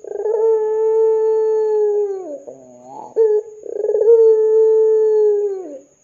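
Barbary dove (puter) cooing: two long drawn-out coos of about two seconds each, each held on one pitch and dropping at the end, with a short wavering sound between them.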